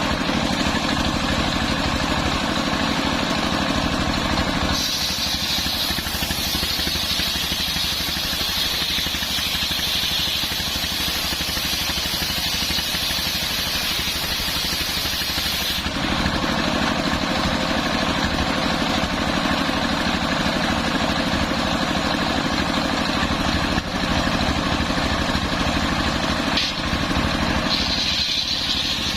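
Engine-driven homemade circular sawmill running steadily. Its blade cuts through a coconut-palm log with a high hissing rasp from about five seconds in for about ten seconds, and another cut begins near the end.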